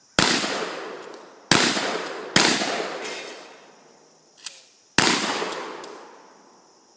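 Four gunshots at a 3-gun match: two about a second apart, a third close after, then a pause of over two seconds before the fourth. Each report is sharp and has a long rolling echo that fades over more than a second.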